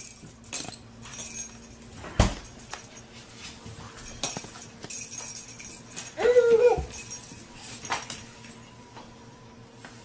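Dog whimpering once, a short falling whine about six seconds in, among scattered knocks and rattles from the toy it is playing with.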